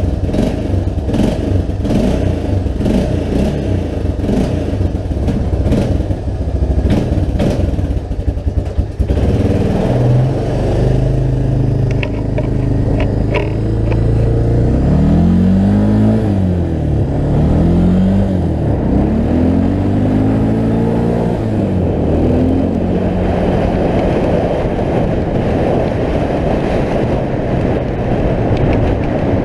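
Honda FourTrax ATV engine running under way, with a rattling clatter over it for the first nine seconds or so. After that the engine pitch rises and falls several times as it speeds up and eases off, then it runs steadier near the end.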